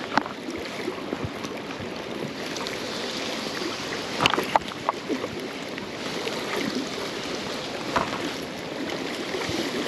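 Shallow river water running steadily, with a few small sharp knocks and clicks about four to five seconds in and again near the end.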